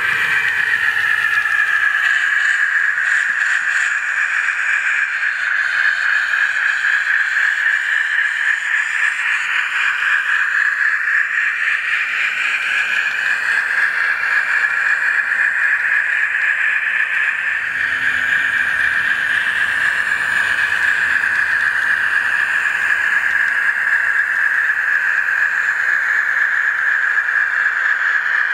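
N scale Athearn 4-6-6-4 Challenger model steam locomotive running on the track, its onboard sound decoder playing a steady steam-engine running sound through its small speaker.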